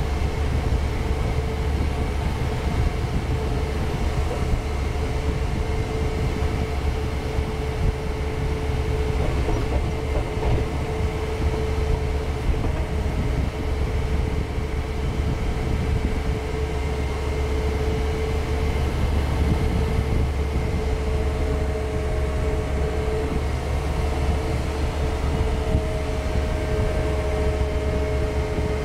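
Diesel engine of a John Deere compact cab tractor with front loader, running steadily as the tractor drives: an even low drone with a steady tone over it.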